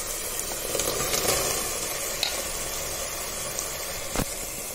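Onion–tomato biryani masala sizzling steadily in oil in a pressure cooker, fried to the stage where the oil separates and floats, with a few faint clicks and one sharper click near the end.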